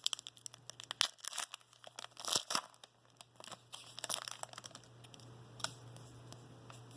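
Foil trading-card pack wrapper crinkling and tearing as it is opened and the cards are handled, with sharp crackles and clicks, busiest over the first four seconds and sparser after that.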